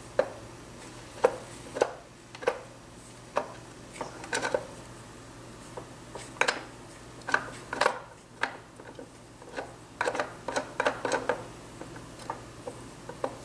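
Irregular light metallic clicks and clinks, some in quick clusters, as the input shaft of a Triumph Spitfire 1500 single-rail gearbox is worked down by hand into the gear train, steel parts knocking and seating against each other. A faint steady low hum runs underneath.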